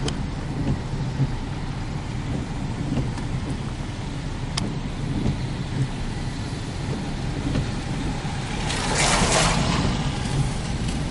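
Steady road and engine rumble of a car driving slowly, heard from inside the car. There is a single click about four and a half seconds in, and a louder rush of noise around nine seconds in.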